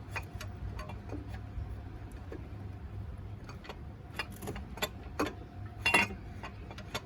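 Scattered light clicks and clinks of parts and tools being handled while a part is worked into place, with one louder clunk about six seconds in, over a steady low hum.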